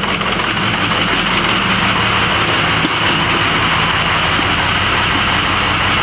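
Ford 6.0-litre Power Stroke V8 turbodiesel idling steadily, with a loud even hiss over its low running note. The engine is misfiring: injectors on two cylinders get no power, which the mechanic puts down to a coolant-damaged injector control module (FICM).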